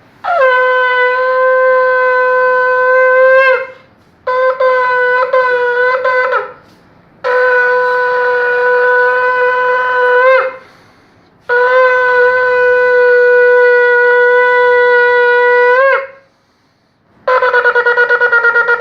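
Shofar blown in four long, steady blasts, each ending with a brief upward flick in pitch; the second blast is broken by short stutters. Near the end a rapid run of quick pulsing notes begins, several a second.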